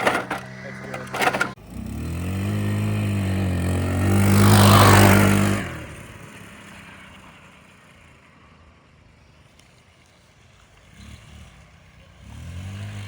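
A GY6 scooter's four-stroke single-cylinder engine idles with a few knocks and rattles, then revs up. It passes close and loud about four to five seconds in, then fades away into the distance. Near the end it comes back, rising in pitch.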